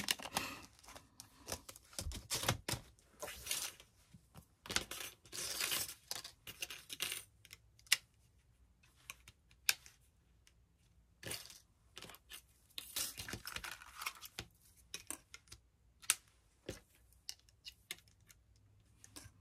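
Thin metal craft cutting dies clicking and clinking as they are handled and sorted, with pouches rustling in between.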